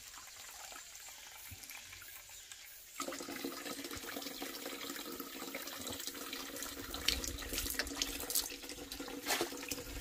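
Spring water running steadily. It is quiet at first and becomes louder and fuller suddenly about three seconds in.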